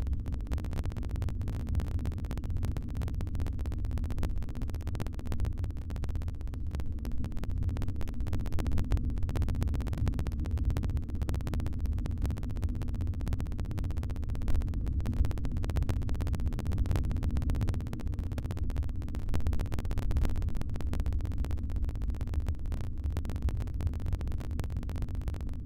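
Steady low rumbling noise picked up by the nest-box webcam's microphone, with no distinct calls standing out.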